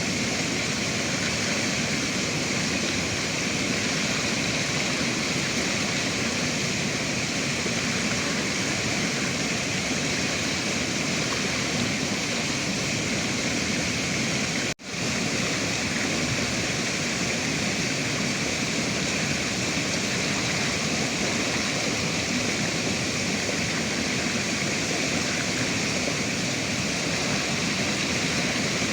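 River water rushing steadily, a constant even wash of flowing water. It cuts out for a split second about halfway through.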